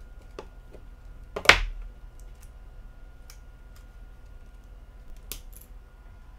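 Small plastic clicks and taps as the battery is pried out of an older Samsung Galaxy phone with a removable back and set down on a table. The loudest click comes about one and a half seconds in and a sharp pair near five seconds in, with fainter ticks between.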